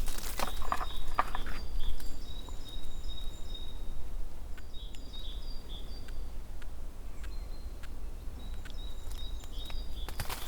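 A songbird singing three phrases of high, thin notes, with rustling footsteps in the first two seconds.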